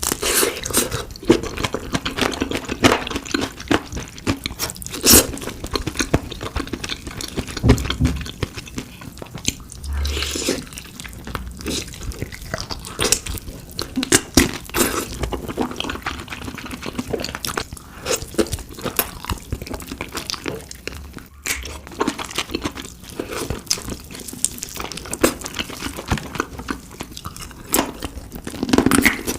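Close-miked crunching and chewing of crispy fried chicken: irregular crackly bites and chews throughout.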